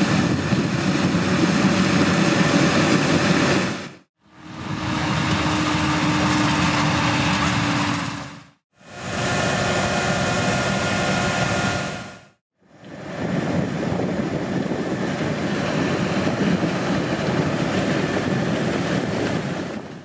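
Claas Trion 530 combine harvester working through standing maize, with a tractor and grain trailer running alongside, heard as four short clips that each fade in and out. The second clip carries a steady hum over the machinery noise.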